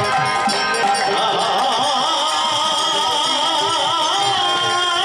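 Bengali raga kirtan: a male voice sings long, wavering notes over harmonium, khol drums and hand cymbals. The sung line comes in about a second in.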